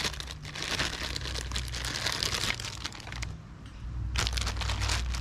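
Packaging crinkling and crackling as it is handled. There is a long spell first, then a short burst about four seconds in.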